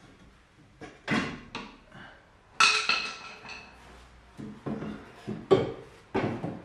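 Metallic clanks and knocks as the old rear exhaust muffler of a Mk1 Volkswagen Golf is worked off its hanger brackets. One louder clang about two and a half seconds in rings briefly, and there is a cluster of further knocks in the second half.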